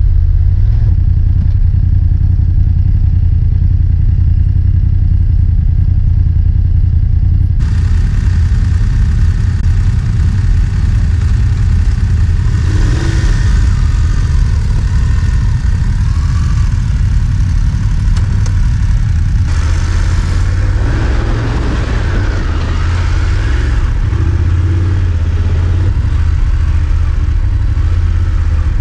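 BMW GS adventure motorcycles riding off-road, their engines running steadily under the rider, heard through a helmet-mounted camera. The sound changes abruptly twice, about a third of the way in and again past halfway.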